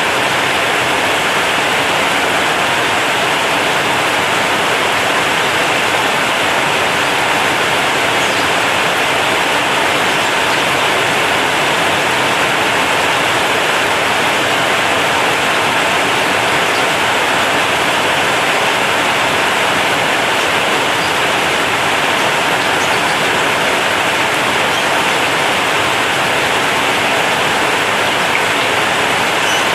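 Heavy rain drumming steadily on a corrugated zinc roof, a dense even hiss with no let-up.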